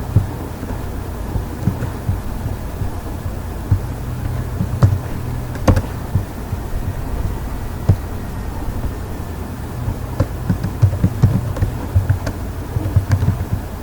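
A steady low electrical hum from the recording microphone, with scattered sharp computer mouse clicks, one of them louder about six seconds in and several close together near the end.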